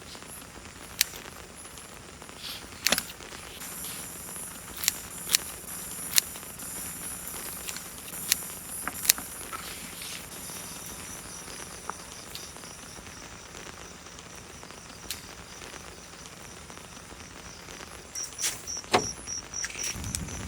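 Scattered sharp clicks and knocks over a steady outdoor hiss; near the end an insect starts a fast, even run of high chirps.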